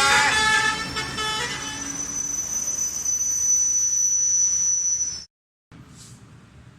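Bus 'telolet' horn, a set of musical air horns, sounding its tune and fading out within the first second or so over engine and traffic noise. A steady high whine then holds for a few seconds before the sound cuts off abruptly, leaving only faint background noise.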